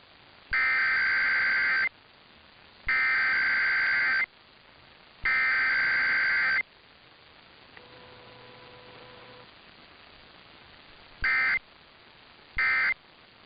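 Emergency Alert System SAME digital data bursts: the header sent three times, each burst a little over a second long with about a second between, then short end-of-message bursts about a second apart near the end.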